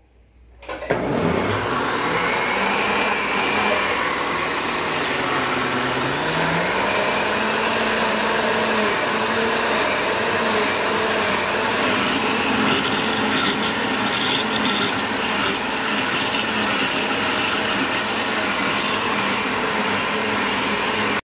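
Philco countertop blender running, blending a thick pancake batter of flour, milk and eggs. The motor starts about a second in and runs steadily, its pitch dipping briefly a few seconds in and then recovering.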